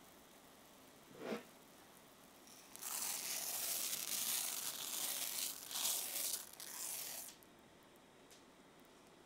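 Dry short-grain sushi rice poured from a cup into a cast-iron skillet of simmering broth: a hissing rush of falling grains lasting about four seconds, over a faint simmer, with a short tap about a second in.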